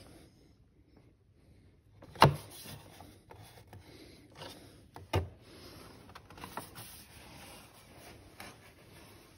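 Handling noise as a motorcycle's plastic lower fairing cover is worked at by hand: two sharp knocks, about two seconds and five seconds in, with faint rubbing and small ticks between.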